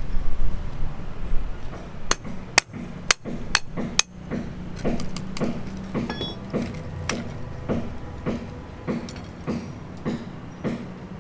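Hammering on a building site: after a low rumble, a few sharp, ringing blows about two a second, then a steady run of duller hammer strikes at about the same pace.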